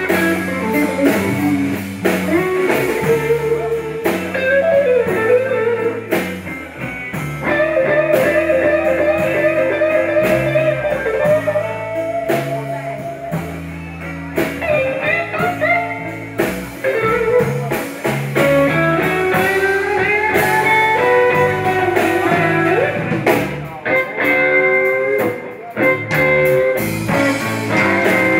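Live blues-rock band of acoustic guitar, electric guitar, bass guitar and drum kit playing an instrumental passage without vocals. A guitar carries a melody with bent notes over a steady bass and drum groove.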